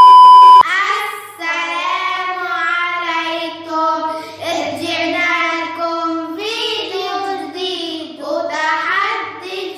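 A loud steady test-tone beep that cuts off about half a second in, followed by two boys singing together in a sustained, held melody.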